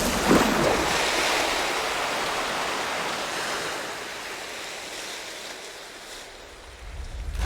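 A splash into river water near the start, then a rush of churning water that slowly fades, swelling again near the end.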